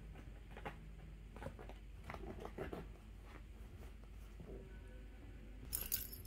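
Faint rustling and crinkling of a nylon cat play tunnel as kittens paw and scramble at it, with scattered light scuffs and a louder crinkle near the end.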